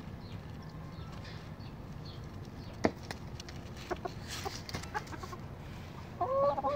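A small flock of six-month-old chickens clucking, with one sharp tap about three seconds in and a few lighter ticks after it. Near the end comes a louder burst of wavering, warbling chicken calls.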